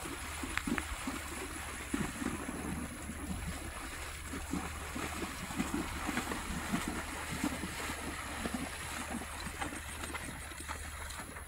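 A grade Tennessee Walking Horse's hooves splashing through shallow water at a steady gait, a quick, uneven run of splashes several times a second.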